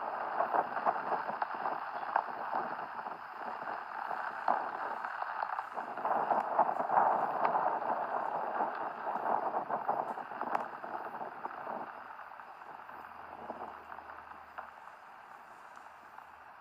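Rain falling, a dense patter of drops with scattered sharper ticks, easing off over the last few seconds.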